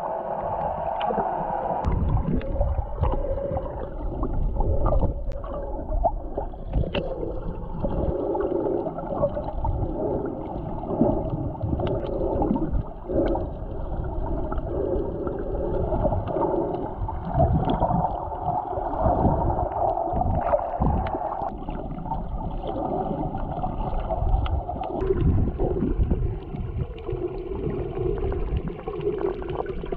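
Muffled underwater sound picked up by a submerged camera: water gurgling and sloshing with a low rumble and little treble.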